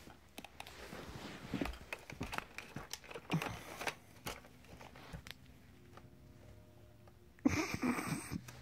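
Play noises of a kitten and a hand-held wand toy on carpet: scattered light scuffs, taps and rustles, with a louder rustling burst near the end.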